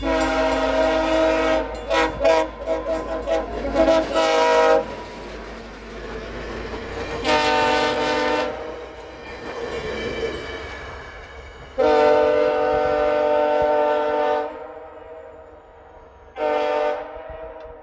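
VIA Rail F40PH diesel locomotive's multi-note air horn played as a horn show. A blast breaks into a quick run of short stuttered toots, then three more separate blasts follow, the longest about twelve seconds in, over the low rumble of the train.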